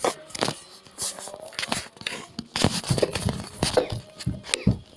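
Irregular rustling and crinkling with many scattered sharp clicks.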